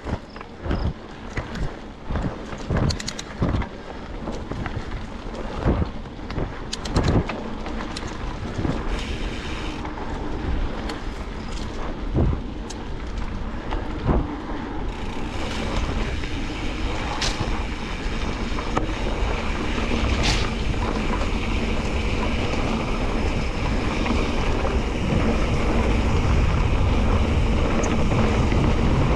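Mountain bike ridden over a rough dirt track: tyre noise with many sharp knocks and rattles from the bike over bumps. About halfway through it becomes a steadier, louder rolling rush with wind buffeting the microphone.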